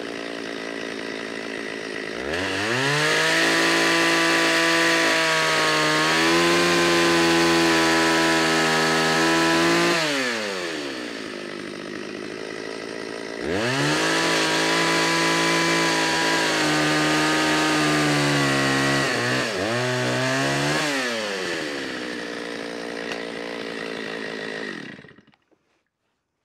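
Two-stroke gas chainsaw idling, then revved to full throttle twice to cut through a log, each cut lasting several seconds with the engine pitch sagging and wavering as the chain bites into the wood. It drops back to idle after each cut and stops abruptly shortly before the end.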